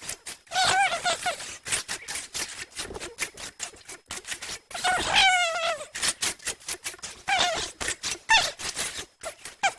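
A person's voice making high, wavering squeaky noises in several short bursts, one a fast warble about five seconds in, with rapid clicking and sputtering sounds between them.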